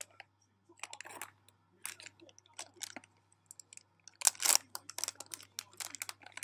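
Plastic packet of soft modelling clay crinkling and rustling as it is handled and shaken, in irregular crackles that get louder and busier about four seconds in.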